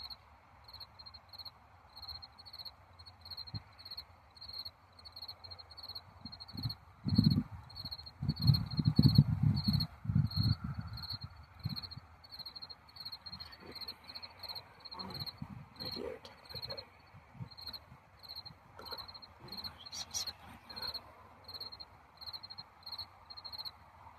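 Crickets chirping steadily at a high pitch, about two chirps a second. A louder burst of low rumbling noise breaks in about seven seconds in and lasts some four seconds.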